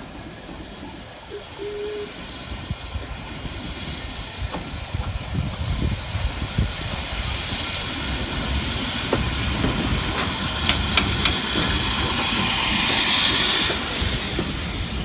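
A steam locomotive drifts into the station and passes close by, hissing steam over the low rumble of its wheels and coaches. The hiss grows steadily louder, peaks near the end, then cuts off suddenly.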